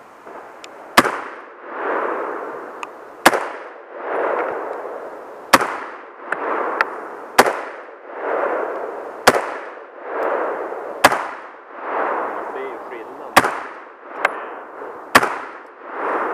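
Rifle shots during a timed competition stage: eight sharp cracks, about one every two seconds, each followed by a hiss that swells and fades, with a few fainter clicks in between.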